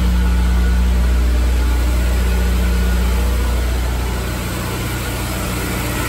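Honda S2000's DOHC VTEC four-cylinder engine idling steadily just after a cold start, with a freshly adjusted valve lash. It sounds pretty good so far, without the misfire it had at cold idle before.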